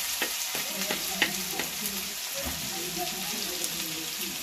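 Grated ginger and garlic sizzling in hot mustard oil in an iron kadhai, stirred with a steel spatula that scrapes and clicks against the pan now and then.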